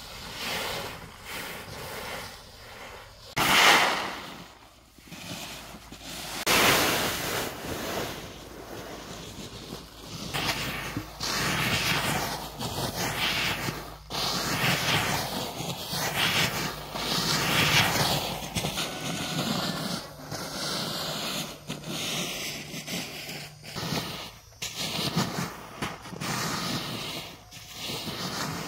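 Rice grains pouring out of a sack onto a plastic tarp, then a wooden rake pushed through the drying rice, rustling and scraping in repeated strokes.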